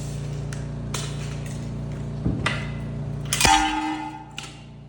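A steady low machine hum with a few light knocks, then a loud metallic clang about three and a half seconds in that rings briefly, after which the hum drops away.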